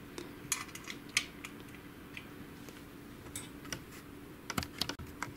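Scattered light clicks and taps of hands fitting a screw into the sheet-metal formatter-board cage of an HP LaserJet 6L laser printer, with a quicker cluster of clicks near the end. A faint steady hum runs underneath.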